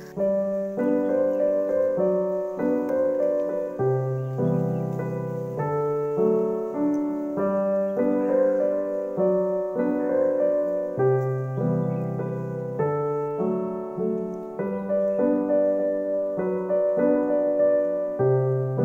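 Background piano music, a steady run of sustained notes and chords changing about every half second to a second.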